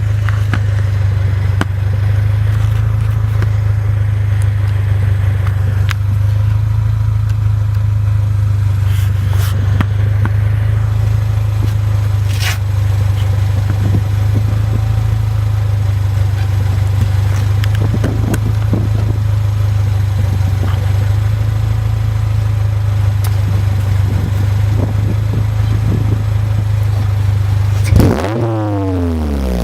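1992 Honda Civic four-cylinder engine idling steadily through an exhaust with the silencer removed. The exhaust is loud, heard from right at the tailpipe. Near the end the engine is revved, its pitch rising and falling.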